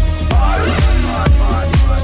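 Melodic techno track: a steady four-on-the-floor kick drum at about two beats a second under a sustained bassline and a fast, repeating synth pattern.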